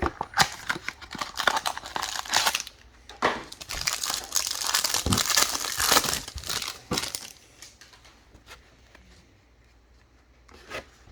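Trading card pack wrapper being torn open and crinkled by hand, a dense rustling that goes on for about seven seconds, then eases off to quiet, with a few light clicks near the end.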